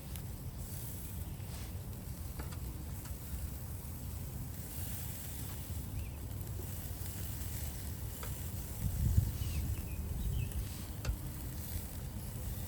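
Skewered shashlik meat sizzling on a grill, with a few faint ticks. A steady low rumble runs underneath and swells briefly about nine seconds in.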